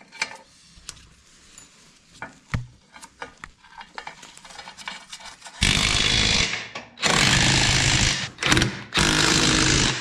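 A DeWalt cordless impact wrench hammering on nuts of a slurry agitator's frame, in four loud bursts starting a little past halfway in. Before that, only light scattered clicks and taps of tools being handled.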